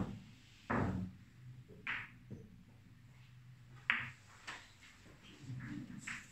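Hand-thrown boccette billiard balls: a knock as the ball leaves the hand, a thud, then the low rumble of the ball rolling across the cloth. Sharp clicks follow about two and four seconds in as balls strike each other, then a few fainter knocks.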